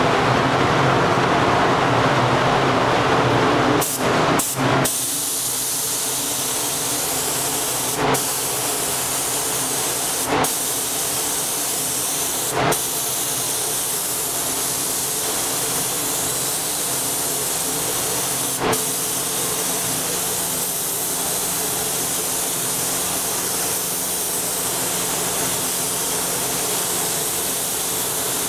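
SATA gravity-feed automotive paint spray gun hissing steadily as compressed air atomises white paint. It cuts out briefly two or three times about four seconds in, with a few short louder puffs later on.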